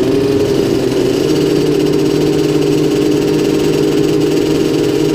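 Several 50cc two-stroke youth motocross bike engines idling steadily side by side at the starting gate, held waiting for the start.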